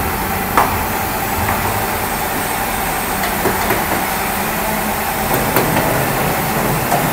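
Workshop room noise: a steady machinery hum with a few sharp knocks and taps of hand tools on wood, the clearest about half a second in.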